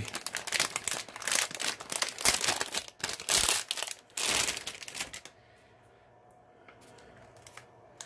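Crinkling and rustling of a plastic anti-static bag as a new laptop battery is unwrapped from it. The crackle comes unevenly for about five seconds, then stops, leaving a few faint ticks.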